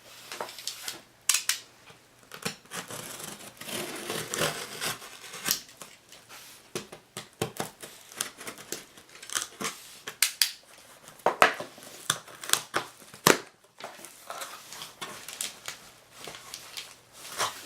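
A shipping package being opened by hand: irregular sharp clicks, rustling and tearing of tape and packing material.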